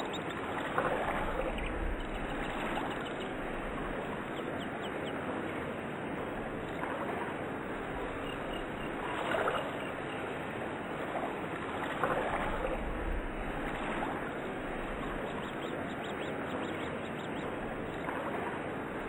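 Steady rushing, water-like background noise with faint chirps, swelling briefly every few seconds.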